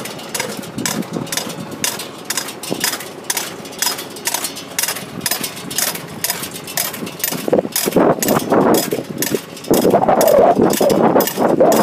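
A Ferrari FX EVO four-row seedling transplanter working behind a running tractor engine, with rapid, irregular mechanical clicks and clatter from the planting mechanism. The sound grows louder about eight seconds in.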